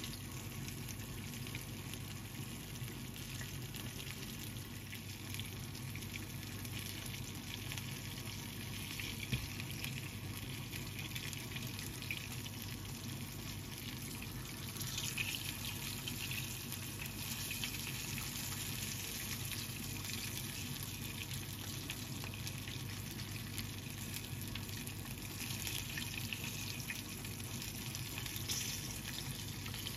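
Karaage-coated chicken drumettes frying in shallow oil in a frying pan: a steady sizzle with fine crackling. The sizzle briefly grows louder about halfway through and again near the end, as pieces are turned with tongs.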